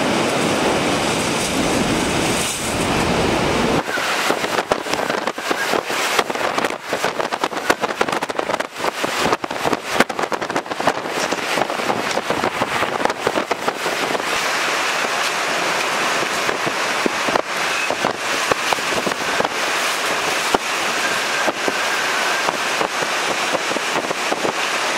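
Hurricane wind and rain: a steady rush of noise, heavy and deep for the first few seconds, then lighter from about four seconds in, with a dense, irregular crackle of sharp clicks and taps.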